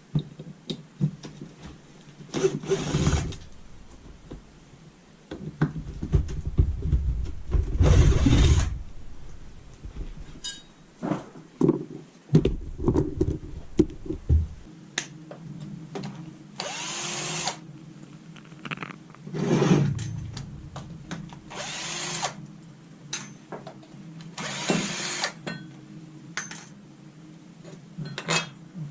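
Handheld power drill running in short bursts of under a second, about five times, amid sharp clicks and knocks of metal parts being handled.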